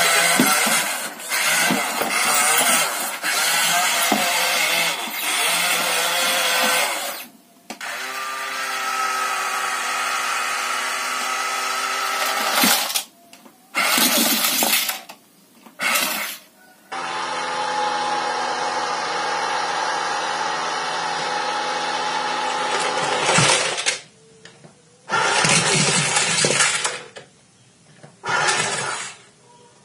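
Small electric motors and plastic gearboxes of remote-control toy construction vehicles whining steadily, in several short clips cut one after another.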